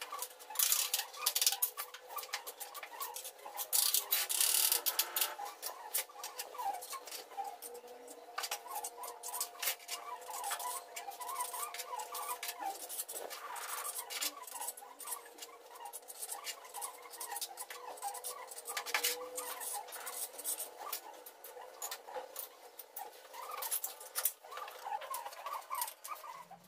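Hand tiling tools at work: a trowel scraping and knocking in tile adhesive in a bucket, and clatter and taps as ceramic skirting tiles are set against the wall, in irregular scrapes and knocks with a few louder scraping bursts. Faint squeaky chirps run underneath.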